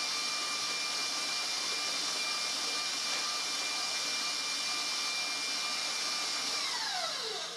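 Electric stand mixer running steadily at speed, beating cookie dough, with a steady motor whine. About seven seconds in it is switched off, and the whine falls in pitch as the motor spins down.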